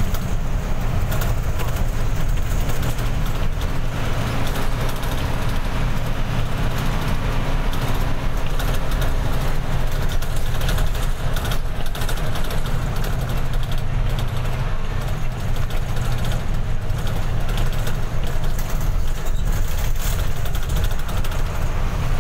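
Steady low drone of an intercity bus's engine and tyre noise, heard from inside the passenger cabin while under way.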